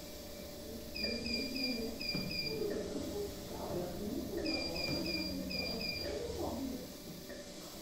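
Medical monitor alarm in a neonatal incubator setting, beeping in groups of three quick beeps then two, the group repeating about every three and a half seconds: the pattern of a high-priority patient alarm. Faint wavering lower sounds run beneath it.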